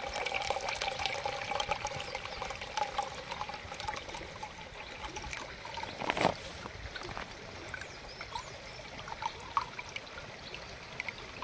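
Water being poured into a titanium camping pot, trickling and splashing, with a faint ringing tone over the first few seconds. A single knock about six seconds in.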